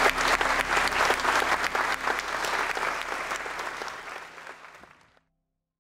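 Wedding guests applauding, a dense patter of many hands clapping that fades steadily and cuts out about five seconds in.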